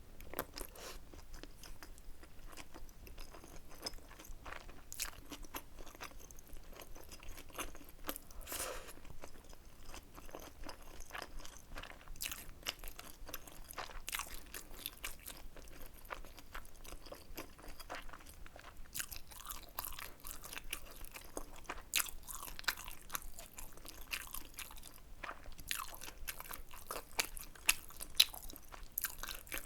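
Close-miked eating sounds: a person chewing and biting food with frequent irregular crunching clicks and crackles, a few sharper, louder crunches near the end.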